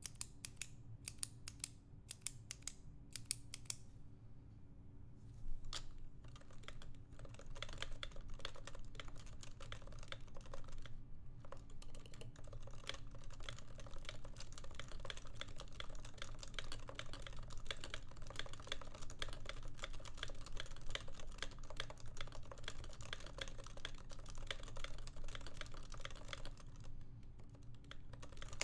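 Typing on a keyboard: a few separate key clicks at first, then fast, continuous typing from about five seconds in, with a brief pause near the end.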